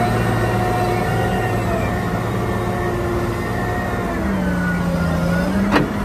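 Caterpillar 990 wheel loader's diesel engine running under load as the bucket is raised, its pitch sagging about two-thirds of the way through and then picking up again, with one sharp knock near the end.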